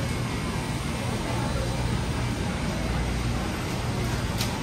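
Indoor market ambience: a steady low hum under faint, indistinct crowd chatter, with a short click near the end.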